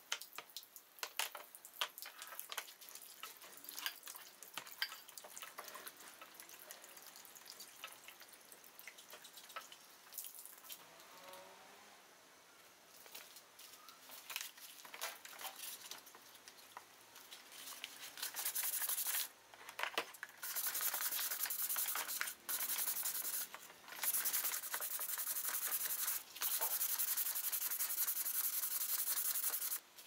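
Dripping water and small clinks and splashes as aluminium moka pot parts are handled in a wet plastic tub. From a little past the middle, liquid is poured into the tub in several long, steady pours that cut off suddenly.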